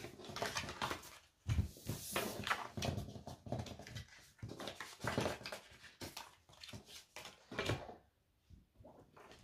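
Oracle cards being swept together and slid across a tabletop, with irregular scrapes, shuffles and soft taps of the stack on the table, including a dull thud about a second and a half in.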